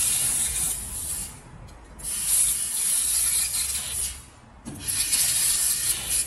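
1500 W handheld fiber laser welding gun with its cutting nozzle, cutting sheet metal with a hissing gas jet. The hiss comes in three bursts of one to two seconds with short gaps between.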